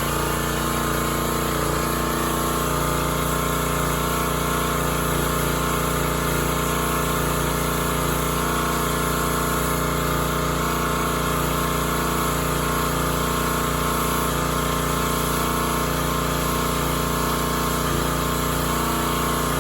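Small gas engine of a pressure washer running steadily at a constant speed.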